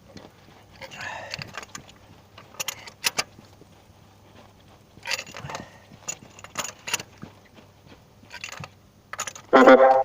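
Metal hand tools clinking and scraping while the new spark plugs are tightened and the engine is put back together, with several sharp metallic clicks. A short, loud pitched sound, the loudest thing here, comes near the end.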